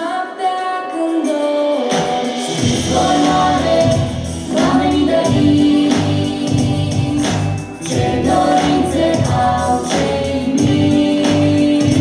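Upbeat children's pop song played loud over a theatre sound system, with singing: a light melodic opening, then the bass and beat come in about two seconds in and run steadily on.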